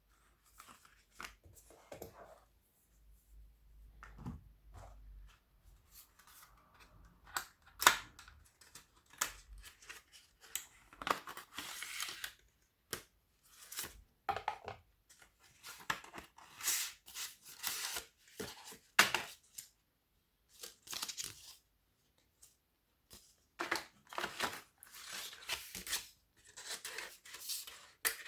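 Packaging being opened by hand: irregular tearing, rasping and clicking as it is ripped and cut, sparse at first and coming in denser, louder bursts from about a quarter of the way in.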